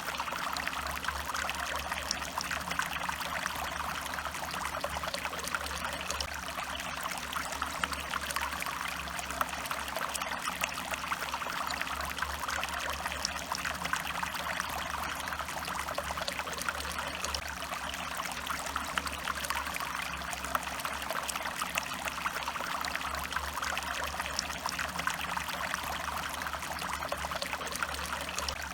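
Stream water running and trickling steadily, an even rushing with fine splashing and no change throughout.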